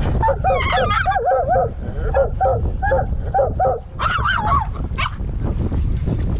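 Hunting dogs whining and yelping in a run of short, wavering calls, with a higher, more excited burst about four seconds in, over a steady low rumble.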